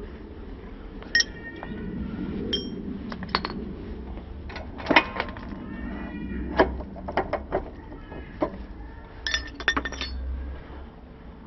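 Metal tools and parts clinking and knocking, irregular sharp clinks, some ringing briefly, as the motorcycle's rear wheel assembly is worked on; the clinks come thickest about halfway through and again near the end.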